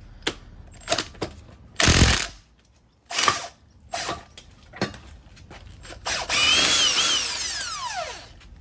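Power wrench working the strut's 19 mm top nut: short bursts about two and three seconds in, then a longer run from about six seconds whose whine falls in pitch as it winds down. Clicks and knocks of tools and parts come in between.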